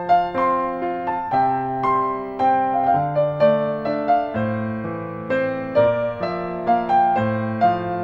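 Gentle, slow piano music: single notes and chords struck about twice a second, each ringing and fading.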